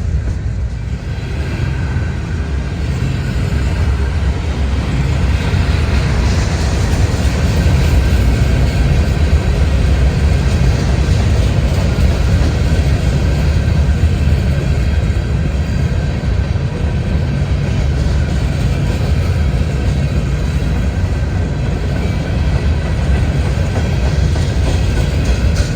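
Freight train passing close by: a steady loud rumble of cars rolling on the rails, with wheel clatter.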